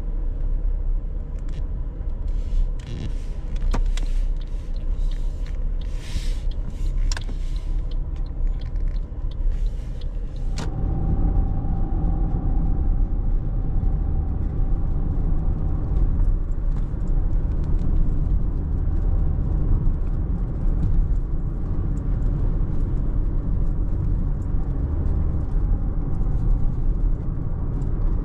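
A car driving, with steady engine and road rumble and a few light clicks and rattles. A sharp click comes about ten seconds in, and after it the rumble grows louder.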